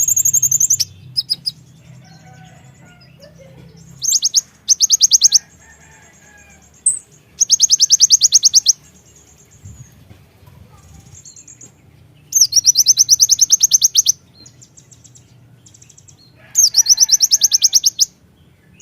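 Kolibri ninja (konin) sunbird singing: loud, high, very rapid rattling trills in bursts of one to two seconds, repeated about five times with short pauses between.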